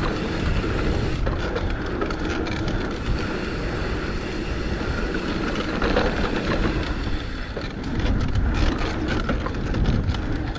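A 2020 Trek Slash mountain bike ridden fast down a rough dirt trail, heard from a camera mounted on the bike: a steady roar of tyres and rushing air over constant clattering and rattling from the bike and the mount. The low rumble grows heavier about eight seconds in.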